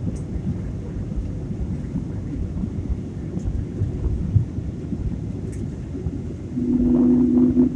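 Steady low rumble of an airliner cabin in flight: engine and airflow noise. Near the end a steady two-pitched tone sounds for about a second, the loudest thing here.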